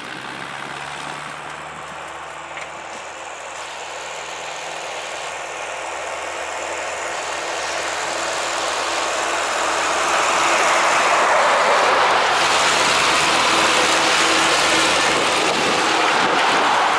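Ursus C-360 tractor's three-cylinder diesel engine running steadily as the tractor drives along the road, growing louder as it approaches. From about ten seconds in, a rush of road and traffic noise swells over the engine hum.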